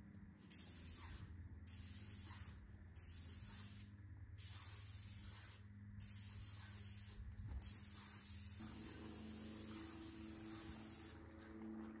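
Paint spray gun hissing as it sprays paint onto a door, in repeated passes of about a second each with short breaks as the trigger is released, then one longer pass of a few seconds near the end.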